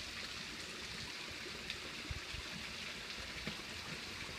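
Small garden waterfall spilling over stacked stones into a koi pond: a steady splashing water sound, with a couple of soft low thumps.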